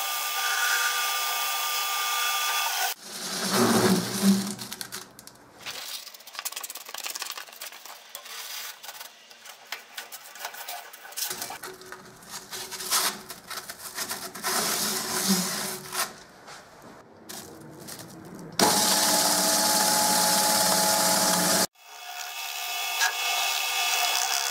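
Lathe motor running with a steady hum, stopping about three seconds in. Irregular knocks and rubbing of the wooden block being handled on the machine follow. The lathe runs again loudly near the end, cuts off sharply, then starts running once more.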